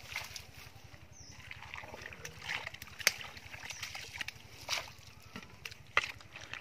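Long-handled spade chopping into and scooping wet, muddy soil. Several separate wet scrapes and chops come a second or two apart, the sharpest about three seconds in.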